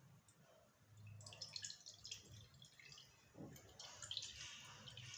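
Faint trickling and dripping of the thin watery liquid from soaked bajra flour in buttermilk as it is poured off into a cooking pot, starting about a second in.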